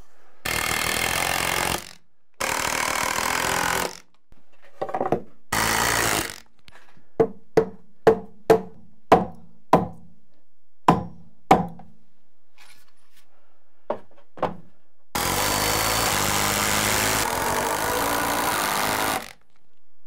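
Cordless drill-driver running in several bursts, the longest lasting about four seconds near the end, as it drives long structural screws through wood blocks. Between the bursts comes a run of about ten sharp knocks on wood, roughly two a second.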